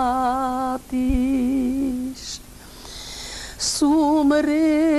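A woman singing a Macedonian folk song unaccompanied, holding long notes with a quick wavering ornament. There are two sustained notes, then a pause of about two seconds between phrases, and the next phrase begins near the end.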